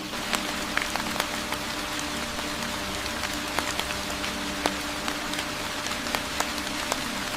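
Steady rain falling in a forest, an even hiss with scattered sharp drop clicks, over a low steady drone.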